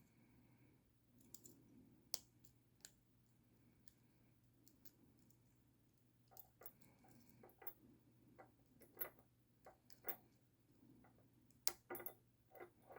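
Lock pick and tension wrench working the pins of a Brinks 662 four-pin padlock: faint, irregular small clicks, a few sharper ones near the end.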